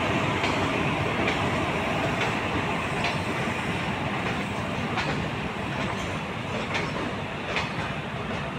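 Indian Railways WAP-4 electric locomotive and its passenger coaches rolling slowly past: a steady rumble of wheels on rail, with sharp clicks every second or so as the wheels cross rail joints.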